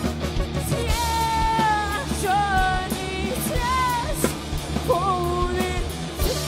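Live rock band playing: a woman sings long held notes, some sliding in pitch, over electric guitar, drums and keyboard, her voice coming in about a second in.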